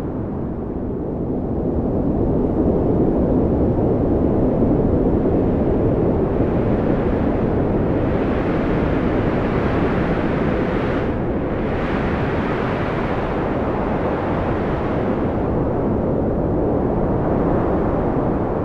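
Strong wind blowing in a steady low rush that swells and eases slowly, briefly brighter and hissier in the middle.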